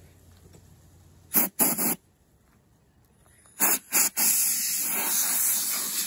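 Compressed-air blow gun on an air hose blowing coffee-ground residue off a steel wheel: two short blasts of hissing air about a second and a half in, two more near the middle, then a steady blast.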